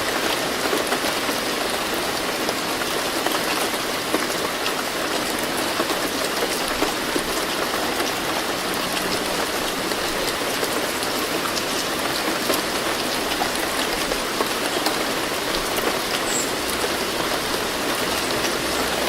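Moderate rainfall: a steady, dense hiss of rain with countless small drop patters.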